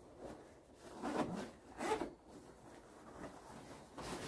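Nylon camping gear rustling and rubbing as a sleeping mat and bedding are handled, with two short scrapes about a second and two seconds in.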